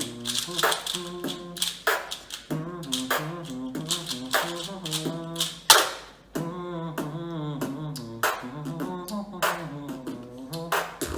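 Beatboxing: a steady beat of sharp mouth-made kick and snare sounds, with a hummed melody line woven between them. The beat breaks off briefly about six seconds in, then resumes, and stops right at the end.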